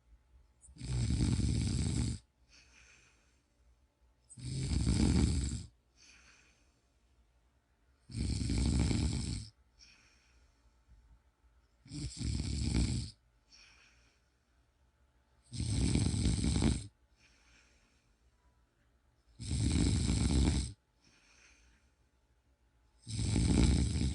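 A person snoring in a steady rhythm: a loud rasping snore about every three and a half to four seconds, each followed by a much fainter breath.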